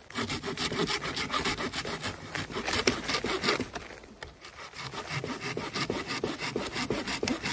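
Hand saw cutting through a dead fallen branch with quick back-and-forth strokes, pausing briefly about halfway before sawing on.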